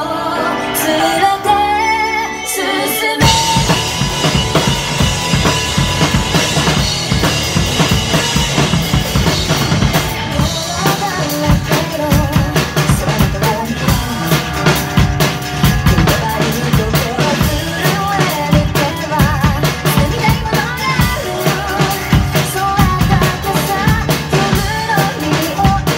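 Drum kit with Sabian cymbals played live over a rock backing track. A woman sings the first few seconds with no drums, then about three seconds in the drums and full band come in together, and kick, snare and cymbal strikes keep a steady driving beat under the song.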